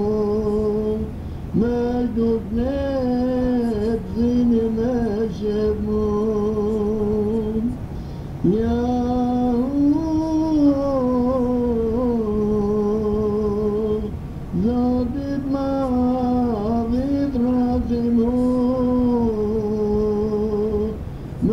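A single voice singing an ilahi, a Turkish-style Islamic devotional hymn, in long drawn-out notes with ornamental turns. The singing runs in four phrases, with brief breaths between them.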